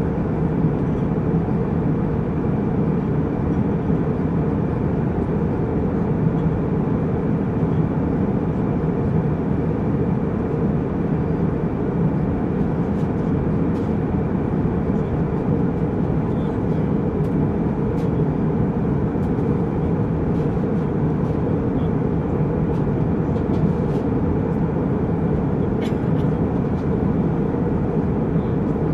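Jetliner cabin noise in flight: the steady, even rumble of jet engines and rushing air, heaviest in the low range, with a few faint light ticks in the second half.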